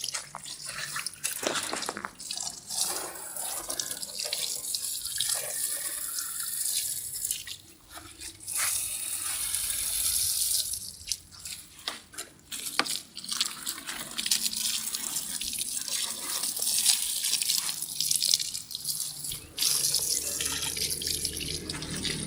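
Running water splashing as a motorcycle engine block is rinsed. It is a hissing spray that breaks off briefly and starts again several times.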